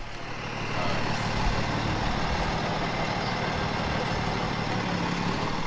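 Diesel engine of a day-cab semi tractor running steadily as the truck drives slowly across grass, growing louder about a second in as it comes closer.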